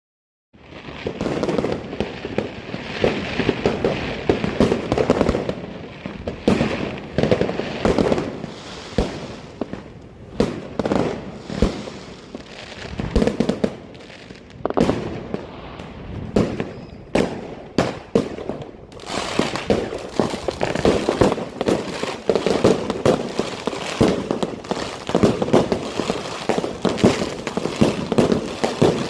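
Wolff Jackhammer 30 mm compound firework cake firing: a rapid, unbroken string of launches and bursts, which thickens into a denser crackling barrage about two-thirds of the way in.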